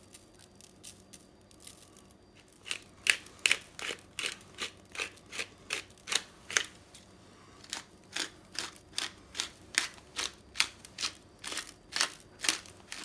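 Hand-twisted pepper mill grinding black peppercorns, a regular run of short crunching strokes about two to three a second that starts about two and a half seconds in.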